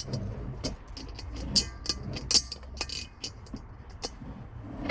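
Irregular metallic clicks and clinks of small grill hardware (bolts, washers and wing nuts) being handled and fitted while fastening a Weber Smokey Joe grill's legs.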